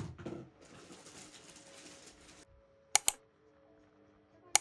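A brief rustle, then two quick double clicks, sharp and loud, about a second and a half apart.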